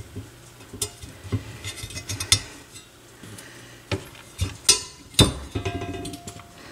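Scattered light metal clicks and taps as the old coil suspension springs are worked off an AR XA turntable's metal subchassis and handled.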